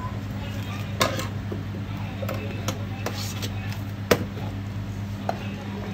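Steel spoons clinking against stainless-steel food trays as chutney and fillings are scooped, with sharp clinks about one second and four seconds in, over a steady low hum and faint background chatter.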